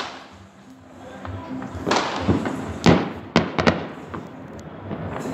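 New Year fireworks going off: four sharp bangs with a trailing echo in quick succession from about two seconds in, the second the loudest. Music plays underneath.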